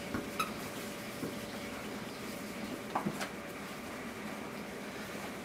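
Puppies at play on a blanket: a few short, soft squeaks and knocks, two near the start, one about a second in and two close together about three seconds in, over quiet room tone.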